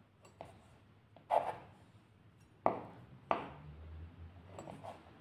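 A table knife clicking and knocking on a wooden board as small pieces of orecchiette dough are cut and dragged across it: a few sharp knocks, then soft scraping near the end.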